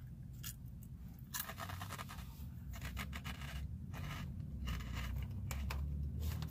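Close-up crunching of a Calbee baked shrimp chip being chewed, in short irregular crackly bursts, over a low steady rumble.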